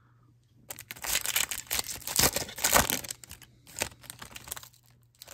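Foil wrapper of a Topps Chrome baseball card pack being torn open and crinkled by hand. It is an irregular crackle that starts about a second in and lasts about three seconds.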